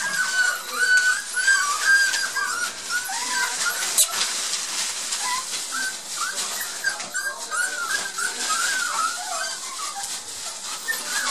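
A litter of Border Collie puppies, about six weeks old, whining and squealing in many short, high, rising-and-falling cries that overlap almost without a break. There is a single sharp click about four seconds in.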